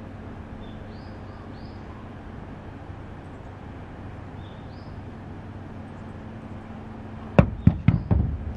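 Steady low background hum with a few faint high chirps, then, about seven and a half seconds in, four or five quick knocks as Starking apples tumble off a stack and hit the tabletop.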